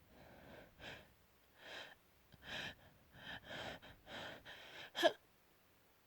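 A person's sneeze build-up: a run of breathy gasping inhales, coming closer together, then one sharp sneeze about five seconds in.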